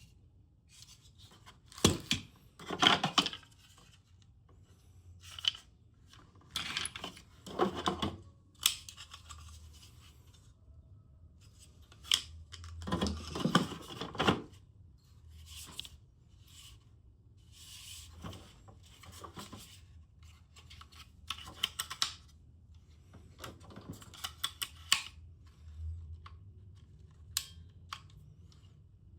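Packaging being handled and opened by hand: irregular rustling and tearing with scattered sharp clicks and knocks, in a small room.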